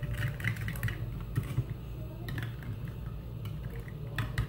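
A spoon stirring a thick, sugary paste in a small glass bowl: irregular light clicks and scrapes of the spoon against the glass, with a quick run of clicks near the end. A steady low hum lies underneath.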